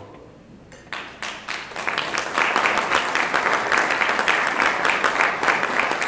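Audience applauding: scattered claps start about a second in and swell into steady applause.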